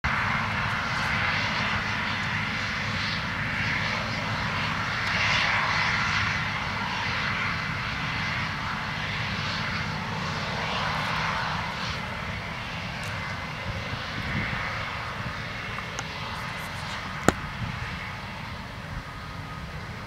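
Case IH 8230 combine running steadily while harvesting soybeans: a diesel engine drone under a broad rushing noise, fading slightly over the last few seconds, with one sharp click near the end.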